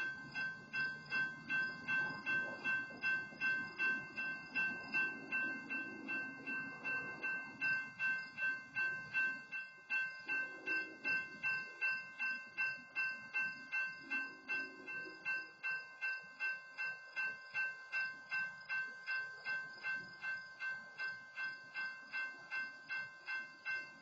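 Railroad grade-crossing warning bell ringing steadily, about two strokes a second, because a stopped freight train is occupying the crossing. A faint low rumble sits under it in the first half.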